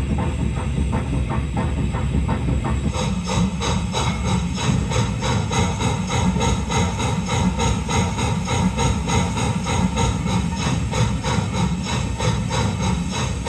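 Steam locomotive sound: an even chuffing rhythm of about three beats a second over a continuous steam hiss, with a louder high hiss joining about three seconds in.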